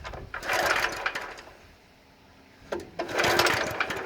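Recoil starter of a lawn aerator's small gasoline engine pulled twice, the engine cranking over for about a second each time without firing, its spark plug out and showing no spark.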